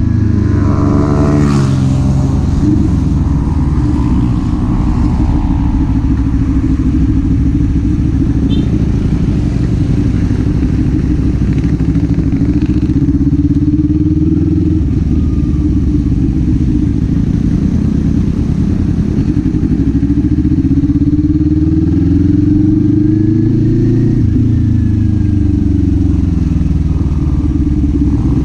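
Kawasaki Z400 parallel-twin engine and exhaust under way, the revs rising and falling with the throttle: a quick climb in the first couple of seconds, a steady stretch, then a longer climb about twenty seconds in that drops off near the end.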